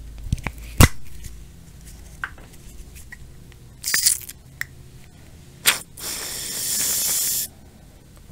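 Aerosol can of hair-styling mousse: a sharp click about a second in, two short hisses, then a steady hiss of about a second and a half as foam is pressed out of the nozzle.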